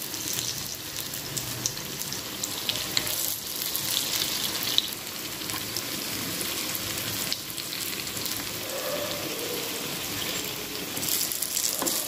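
Pepper appams (fermented rice-and-lentil batter) frying in hot oil in an appam pan: a steady sizzle of bubbling oil with fine crackling.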